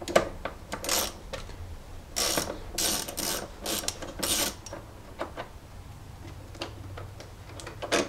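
Ratchet wrench clicking in short runs as a 13 mm nut is backed off a cable terminal stud, followed by a few scattered clicks and taps.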